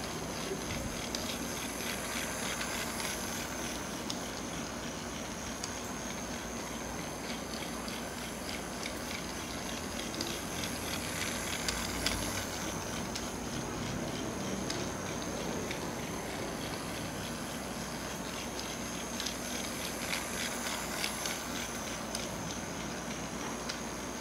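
Motorised plastic toy train running round a plastic track: a steady high motor whine with a quick run of clicks from the wheels over the track joints, louder about halfway through as it passes close by.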